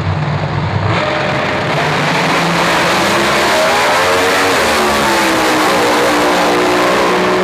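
Pro Mod drag racing cars running at full throttle down the drag strip. The engine noise jumps much louder about a second in and then holds steady, with the engine note sliding down and back up midway.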